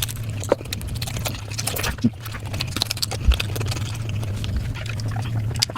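Close-miked eating: chewing and mouth smacking, an irregular run of quick wet clicks, over a steady low hum.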